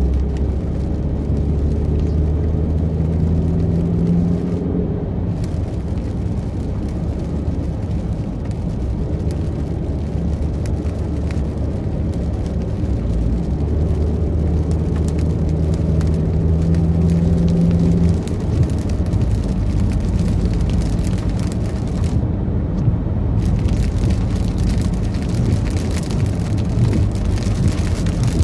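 Car engine and tyre noise from inside a moving car: a steady low rumble, with an engine hum that swells for a few seconds near the start and again around the middle.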